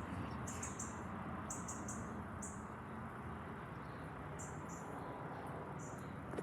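Insects chirping in short, high-pitched clusters every half second or so, over a faint steady rumble.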